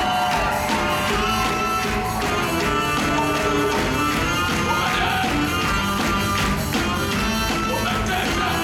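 Live band music from drums, saxophone and guitar, with a steady beat under sustained melody lines.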